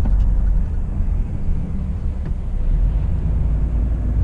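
Heavy goods truck driving slowly, its diesel engine and road noise making a steady low rumble inside the cab.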